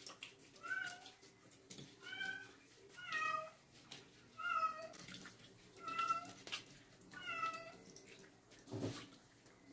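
Young kitten meowing repeatedly while being lathered in a bath: about six short, high meows, roughly one every second and a half, with a brief rush of noise near the end.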